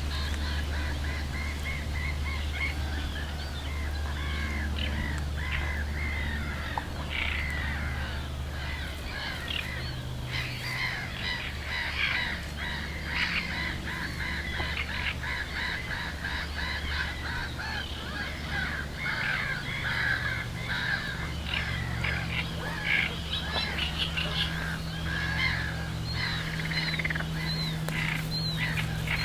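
A chorus of many birds calling and chirping, overlapping constantly, over a steady low hum.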